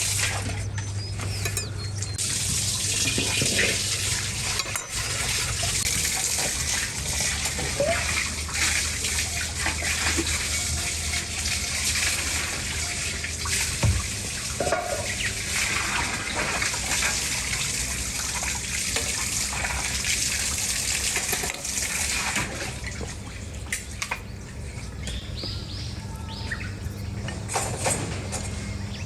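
Water running and splashing steadily, thinning out in the last several seconds.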